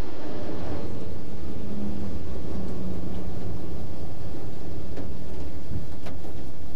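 Electric passenger train running along the track: a steady low rumble with a faint hum in the first few seconds and a few light clicks near the end.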